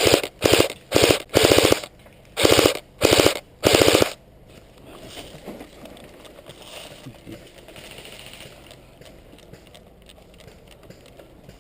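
Airsoft electric gun firing full-auto, about seven short bursts in quick succession over the first four seconds, then stopping.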